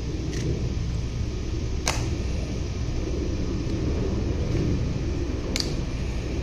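Three sharp heel clicks from the guards' shoes as they turn and come to attention, the loudest about two seconds in, over a steady low rumble.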